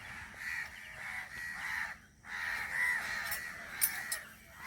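Birds calling over and over outdoors, short arched calls about three a second, with a brief break about two seconds in.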